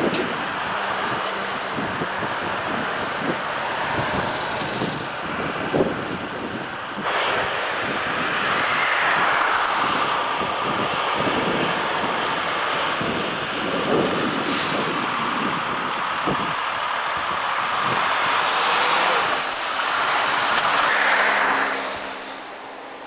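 Foden tanker lorry's diesel engine running as the truck manoeuvres at low speed, with wind buffeting the microphone.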